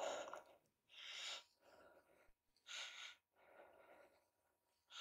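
Faint, ragged human breathing: a few sharp, gasping breaths with short pauses between them.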